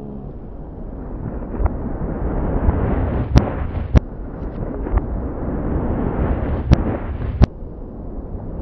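Fireworks slowed down and played in reverse: a deep rumbling wash of noise swells up and is cut by about half a dozen sharp cracks, then drops off suddenly near the end.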